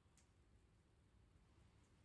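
Near silence: faint room tone with a low hum, and two faint high ticks, one near the start and one near the end.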